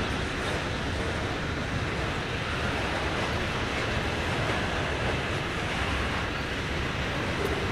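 Norfolk Southern freight train cars rolling past, a steady rumble of wheels on the rails with no distinct clicks or horn.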